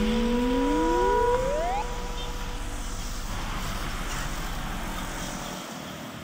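Two held tones and a rising whistle-like glide that end about two seconds in, then passing road traffic (motorcycles and a flatbed truck), fading away toward the end.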